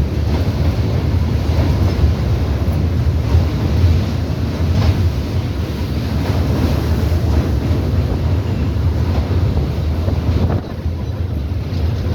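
Express train running at speed: a steady low rumble with wind buffeting the microphone. The level drops slightly near the end.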